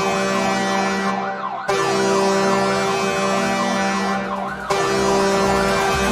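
The Shawinigan Cataractes' hockey goal horn sounding in long steady blasts, with a siren wailing quickly up and down over it, signalling a home-team goal. The horn dips briefly and restarts twice.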